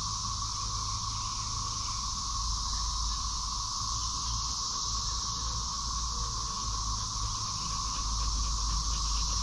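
Steady, unbroken insect chorus with two constant pitch bands, one middling and one high, over a low rumble.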